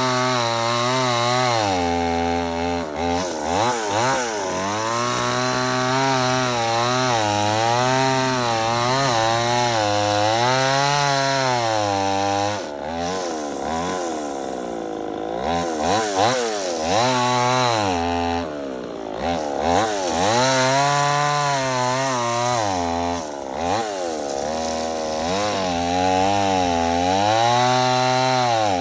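Chainsaw cutting through a big log, its engine pitch sagging and rising again and again as the chain bites into the wood and frees up. The engine drops back twice, about halfway through and again a few seconds later, before working hard once more.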